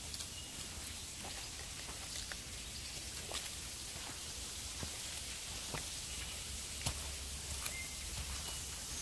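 Forest ambience on a walk: a steady high hiss, with scattered light clicks and crackles of footsteps on the track and a few short, high bird notes.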